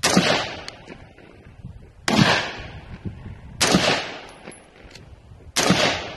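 AR-15-style rifle firing four single shots, spaced about one and a half to two seconds apart, each shot trailing off in an echo over about a second.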